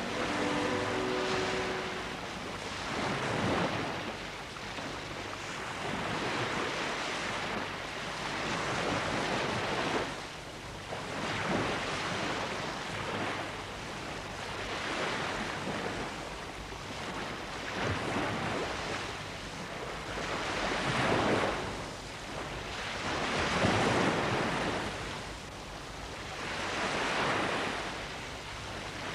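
Rushing surf noise, swelling and ebbing every three to four seconds like waves breaking.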